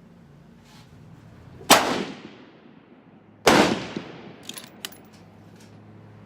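Two rifle shots about two seconds apart from a Blaser Tactical 2 straight-pull rifle with a 5.56 barrel firing 55-grain Wolf Gold ball ammo, each a sharp crack with a fading tail, followed by a few light clicks.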